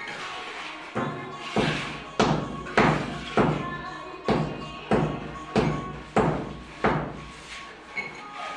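A run of about ten thuds, a little over half a second apart with one short pause, typical of cement mortar being slapped onto a brick wall with a trowel during rendering. Background music plays throughout.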